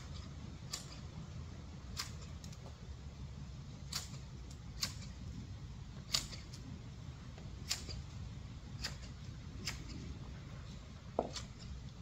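Large hand garden shears snipping at a bush: a sharp click about once a second, unevenly spaced, with a brief squeak near the end, over a low steady rumble.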